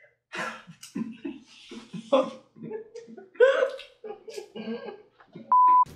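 A man laughing and chuckling in short broken bursts, then a short steady electronic beep near the end.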